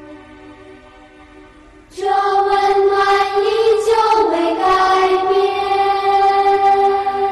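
Slow sung Buddhist chant as background music. A held note fades away, then about two seconds in the voices come back in loudly on long held notes.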